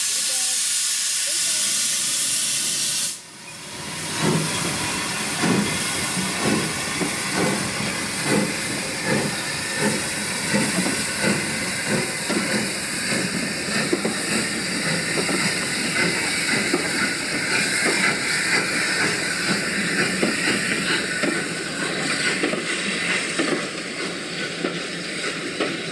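Steam locomotive hissing steam, then, after a sudden break about three seconds in, working with a steady rhythm of exhaust beats, roughly two a second. The locomotive is the Lancashire & Yorkshire Railway Class 27 0-6-0, No. 52322.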